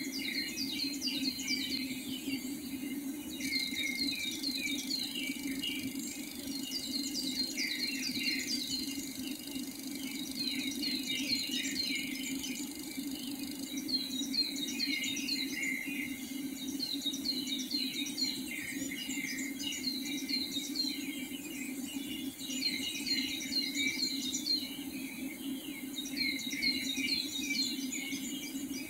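Several birds singing at dawn: rapid series of high, quickly falling notes, repeated in clusters throughout, over a steady low hum.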